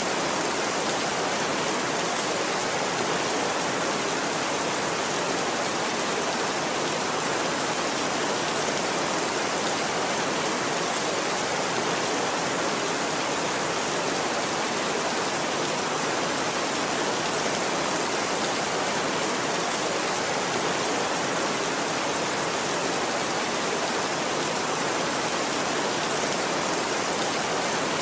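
Steady, even rainfall with no rise or fall in level and no thunder.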